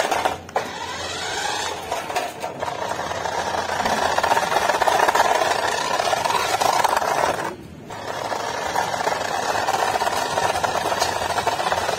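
Toy remote-control car's small electric motor and gears running as it drives, cutting out briefly twice: shortly after the start and again about two-thirds of the way through.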